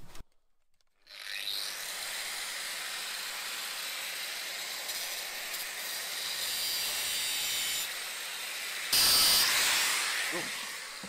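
A steady hiss starts about a second in, then surges louder about nine seconds in and fades away.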